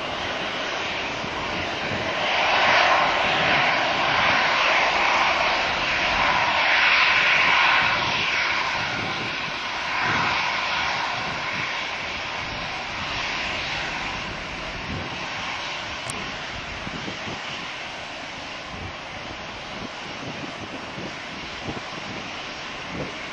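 Boeing 757-224's Rolls-Royce RB211 turbofans at takeoff thrust, a loud jet roar as the airliner rolls down the runway and lifts off. The sound is strongest in the first third and then slowly fades as the jet climbs away.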